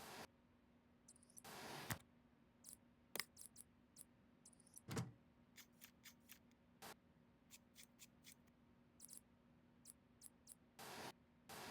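Small parts being handled during a PC build: scattered light clicks and a few short rustles, with a duller knock about five seconds in as the loudest sound, over a faint steady hum.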